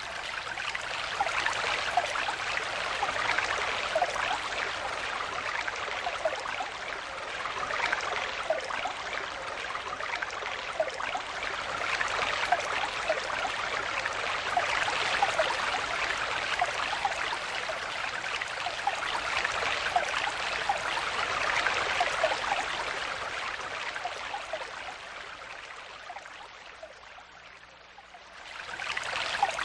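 Stream water flowing steadily, an even rush with many small bubbling, trickling notes. It fades down for a couple of seconds near the end, then comes back up to full level.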